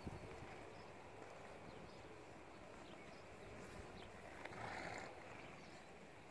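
Faint hoofbeats of a young horse moving on soft dirt, over a low outdoor hush, with a short rush of noise about four and a half seconds in.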